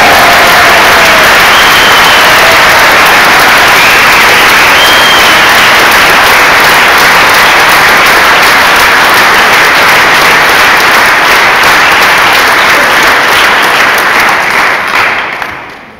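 Audience applauding loudly and steadily, the clapping dying away near the end.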